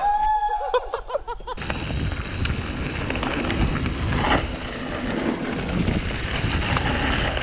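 Mountain bike ridden down a dirt forest trail, heard from a camera on the rider: a steady rush of wind on the microphone, mixed with tyre noise on dirt and leaves and the bike rattling over bumps. It starts about a second and a half in, after a short pitched sound.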